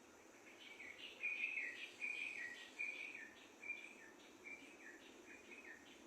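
Small songbird singing a steady series of short chirping notes, several a second. The notes start about half a second in and are loudest over the next second or so.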